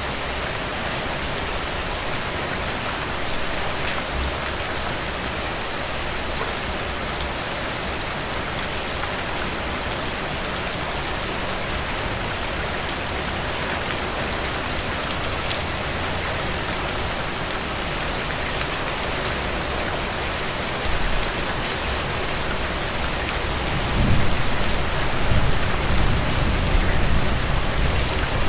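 Steady rain pattering on glossy frangipani leaves and blossoms, with individual drop ticks through an even hiss. About three-quarters of the way through, a low rumble swells underneath and the sound grows a little louder.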